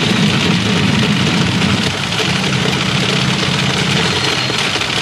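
Pachinko machine sound effects over the dense, steady din of a pachinko parlour.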